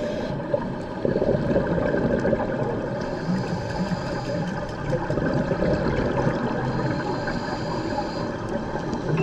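Water bubbling and rushing as a steady noisy wash, stepping up in level about a second in.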